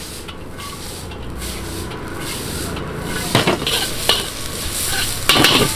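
Vegetables sizzling in a hot wok as a metal spatula stirs and scrapes them. Sharp clanks of the spatula against the wok come from about three seconds in, and the loudest cluster is near the end.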